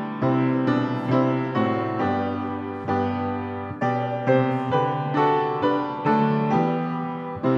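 Piano playing a slow hymn tune in full chords, a new chord struck about twice a second, with a brief phrase break about four seconds in.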